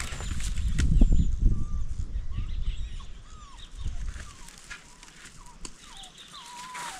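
Chickens clucking and chirping in short calls. A low rumble is heard over the first two seconds or so, and there are scattered clicks.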